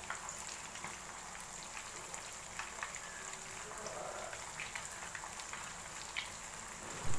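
Seer fish steaks shallow-frying in hot oil in a pan: a steady sizzling hiss with scattered crackles and pops. A brief low thump at the very end.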